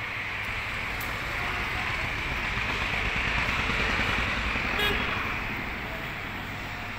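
Vehicle noise, a steady rush with a low rumble that grows to its loudest about halfway and then eases off. There is a small click about five seconds in.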